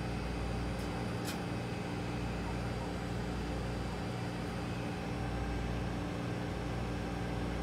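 Steady machine hum made of several held tones, over a low drone that swells and dips every couple of seconds, with one faint click about a second in.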